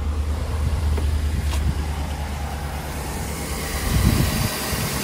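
Chevrolet Tahoe engine idling steadily, freshly started after a new oil pressure switch and an oil change.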